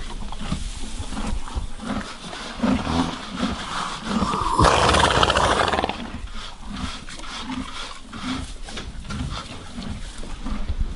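Horse stable ambience: horses shifting and feeding, with repeated low thuds and small clicks. About four and a half seconds in, a horse makes a loud, rough, breathy sound that lasts about a second and a half.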